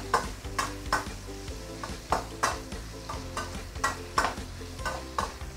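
Metal spatula stirring and scraping pork belly slices in a stainless steel wok, the strokes coming about two to three times a second, over the steady sizzle of the meat frying in its rendered fat.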